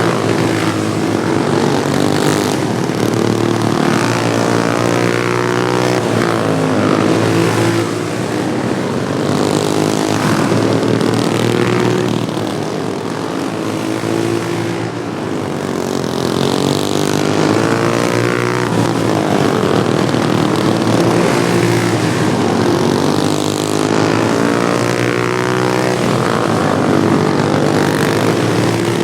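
Several modified Wheel Horse racing lawnmowers' small engines running hard together. Their pitches rise and fall as the machines accelerate, lift and pass, a little quieter about halfway through.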